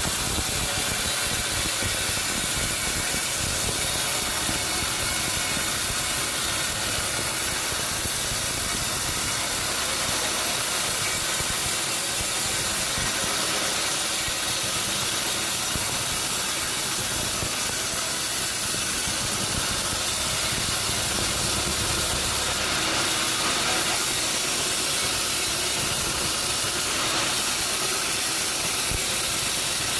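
Sawmill machinery running steadily: a dense, even hiss over an engine hum that does not change in level.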